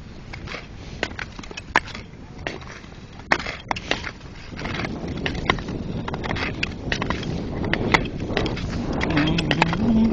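Ice skate blades scraping over natural lake ice with many sharp clicks and cracks while skating fast. A rushing scrape grows louder from about halfway through as the skater picks up speed.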